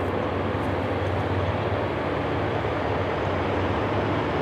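Steady low drone of a lash-up of GE Dash 9-40CW diesel locomotives approaching in notch 8, heard from a distance.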